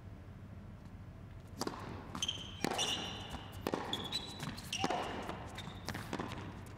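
Tennis rally: sharp racket strikes on the ball and ball bounces, starting about a second and a half in, with short high-pitched shoe squeaks on the hard court between shots.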